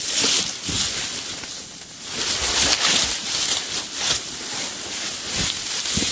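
Tall grass rustling and swishing as a person pushes through it, with a few soft footfalls; the rustling eases briefly before two seconds in.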